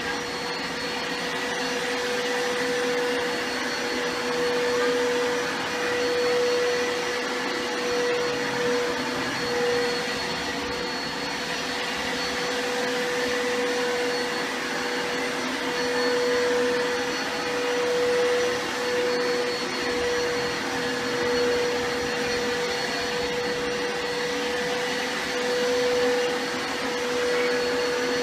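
Vacuum cleaner running steadily: a constant motor whine over a rush of air, its level swelling and dipping slightly.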